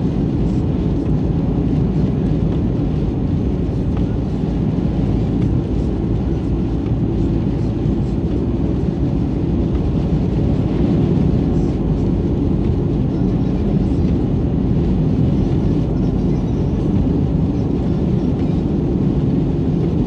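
Steady road and engine noise inside a car's cabin at highway speed on a snow-covered road, a continuous low rumble that holds level throughout.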